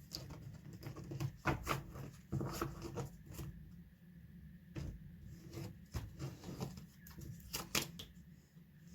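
A deck of tarot cards being shuffled and handled: irregular soft slaps and clicks of cards, coming in clusters.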